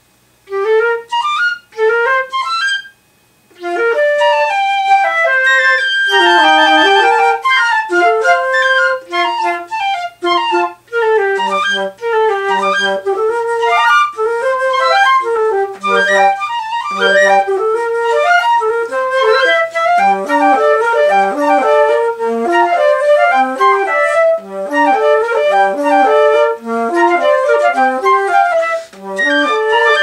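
Flute trio playing: after a moment of silence, a few short phrases and a brief pause, then quick, busy runs of notes from all three flutes weaving together.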